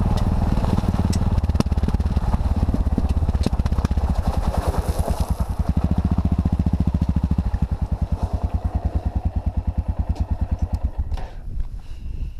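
Single-cylinder dual-sport motorcycle engine running steadily under load on a loose, stony track, with scattered clicks of gravel; the engine sound drops away near the end as the bike slows.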